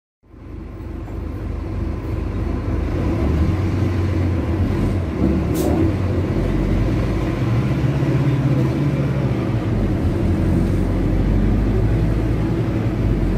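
Scania OC09 inline six-cylinder diesel of a Scania K250UB city bus running, heard from inside the bus. The engine note rises and falls as it works, with a brief hiss about five and a half seconds in.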